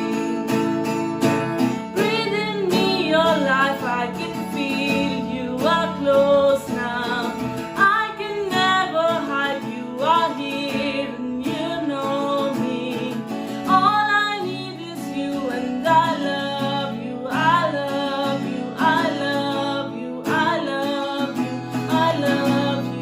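Worship song: steady acoustic guitar chords under a singing voice, sung phrases coming every second or two.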